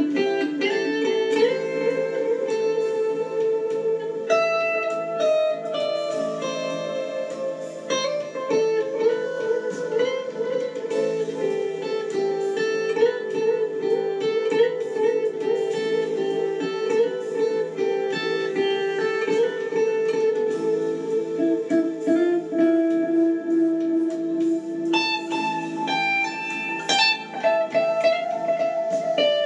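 Solo electric guitar playing slow ambient music: long sustained notes ringing over one another under a picked melody.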